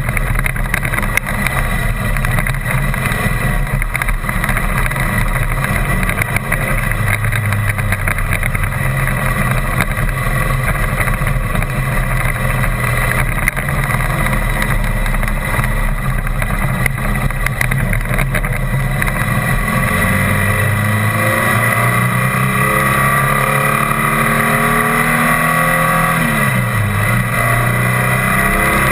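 Motor vehicle driving, rattling and jolting over a rough gravel dirt track, then running smoothly on pavement for the last third with its engine rising in pitch. Near the end the engine pitch drops sharply and climbs again.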